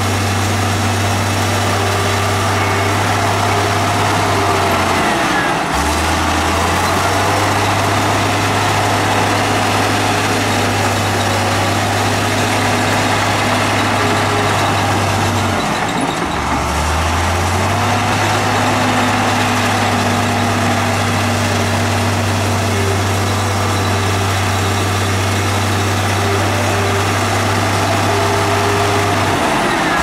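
Heavy diesel engine of earthmoving machinery running steadily, a loud low drone. Twice, about five and about sixteen seconds in, its pitch drops briefly and then picks back up.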